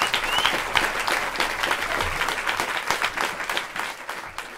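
Audience applauding after a song ends: many hands clapping irregularly, dying away toward the end.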